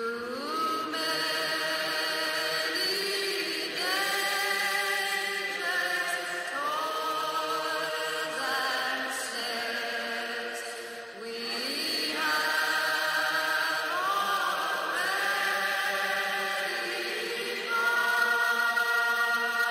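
Slow background music of long held, chant-like voices in layered chords, each new chord sliding up into place every two or three seconds, a little louder near the end.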